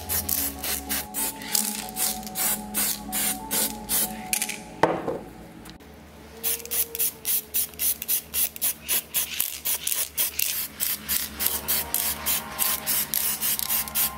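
Spray paint hissing out in rapid short bursts, about three a second, as black paint is sprayed onto small model car parts, with a pause and a single click about five seconds in. Background music plays underneath.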